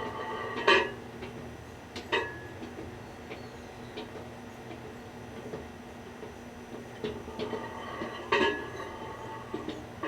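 1000-watt Hamilton Beach microwave oven running with a steady hum while a light bulb is being microwaved inside it, broken by sharp snaps and clicks: loud ones about a second in, about two seconds in and near the end, with fainter ticks between.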